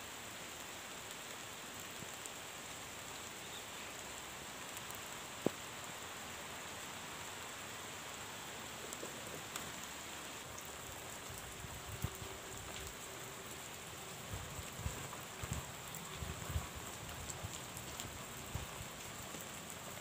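Steady rain falling in a pine forest, an even hiss, with one sharp tap about five and a half seconds in and a few low thumps in the second half.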